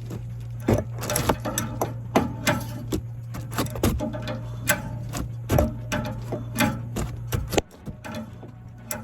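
Irregular clicking and knocking, like hand work with metal tools, over a steady low mechanical hum that stops suddenly about seven and a half seconds in.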